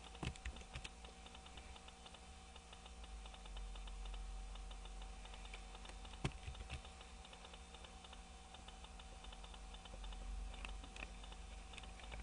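Computer keyboard keys clicked a few times in short, sparse clusters, over a faint steady electrical hum.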